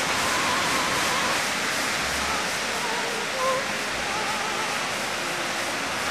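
Steady rush of small waves breaking on the Lake Superior shore. A faint operatic voice, singing held notes with vibrato, comes and goes under the surf.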